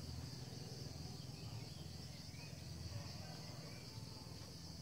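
Steady, high-pitched insect chirring, like a cricket chorus, over a low steady hum.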